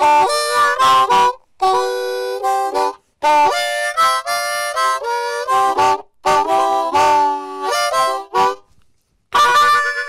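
Harmonica played in short phrases of chords with brief breaths between them, ending on a held chord that fades out near the end.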